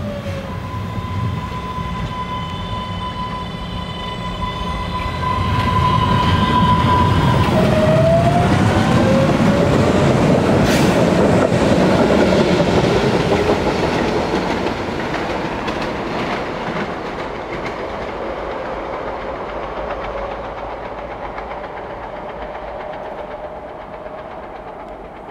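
MBTA Green Line Type 8 light rail train passing slowly over a crossing: a steady electric whine from its traction inverters, then whine tones rising in pitch about eight seconds in as it powers back up to speed. Underneath is the rumble and clatter of steel wheels on rail, loudest as the cars go by and then fading as the train moves away.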